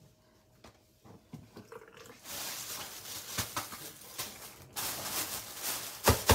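Kitchen handling noise: a rushing hiss begins about two seconds in, stops briefly, then resumes, with a few sharp knocks, the loudest near the end.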